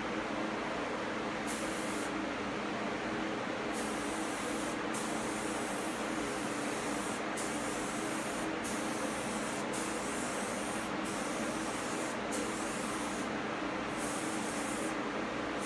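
Spray gun hissing in a run of short passes, each about a second long with brief pauses between trigger pulls, as dye stain is sprayed onto a cabinet door panel. Under it runs the steady hum of the booth fan.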